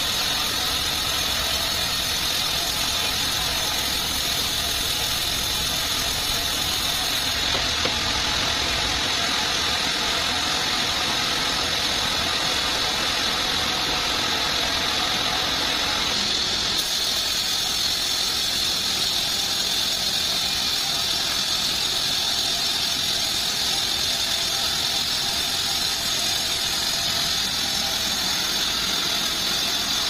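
Homemade bandsaw sawmill running steadily: a continuous machine noise with a steady high hiss.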